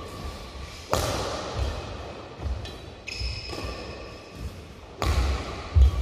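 Badminton play: a racket strikes the shuttlecock with a sharp crack about a second in and again about five seconds in. Between the shots there are low thuds of footwork on the court and brief shoe squeaks.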